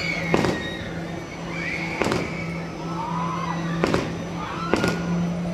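Aerial fireworks going off with four sharp bangs at uneven intervals, over a steady low hum.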